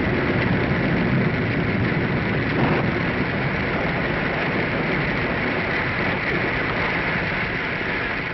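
Radio-drama storm sound effect: a steady rush of wind and rain, easing slightly near the end.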